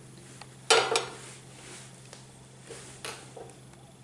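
Flat tava pan set down on a gas stove's metal burner grate: two sharp clanks about a second in, then a few lighter knocks.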